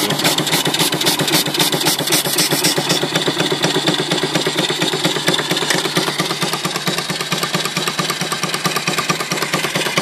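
Single-cylinder Allen steam engine running on boiler steam, its exhaust chuffing in a fast, even rhythm. A hiss of steam and water spitting from the opened cylinder drain petcocks thins out about three seconds in.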